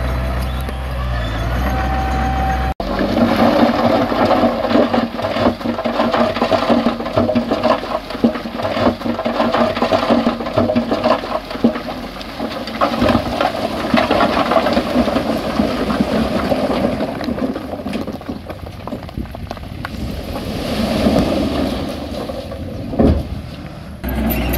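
Heavy earthmoving machinery at work: a steady low engine hum that cuts abruptly about three seconds in to a rough, rushing, clattering noise, and near the end changes back to a low engine hum.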